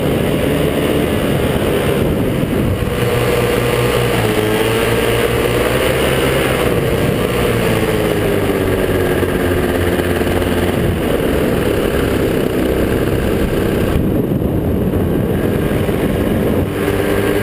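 Top80 single-cylinder two-stroke paramotor engine and propeller running steadily in flight, its pitch drifting gently up and down.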